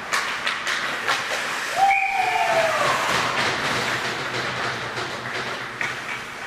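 Ice hockey play at the net: skate blades scraping and hissing on the ice, with sharp clacks of sticks and puck in the first second or so. About two seconds in, as the goal goes in, comes one drawn-out shout that falls in pitch.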